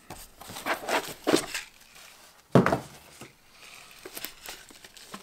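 A 3D-printer filament spool being pulled out of its cardboard box: rustling and scraping of cardboard and packaging, with one sharp knock about two and a half seconds in and a few light ticks near the end.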